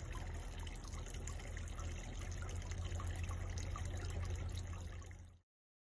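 A thin stream of water trickling from a spout into a stone trough's basin, steady, with a low rumble underneath; the sound cuts off abruptly near the end.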